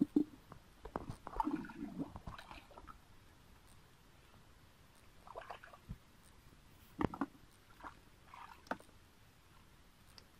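Hands and bare feet splashing and squelching in shallow muddy water, in irregular bursts: a busy cluster in the first few seconds, then scattered splashes later on.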